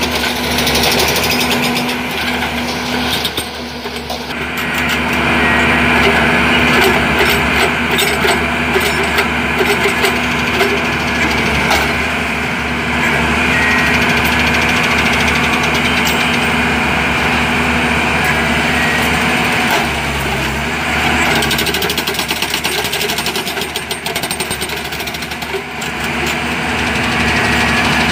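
Rail-mounted track maintenance machine used for tie replacement, its engine and hydraulics running loudly and steadily with a fast mechanical rattle, easing briefly a few seconds in and again near the end.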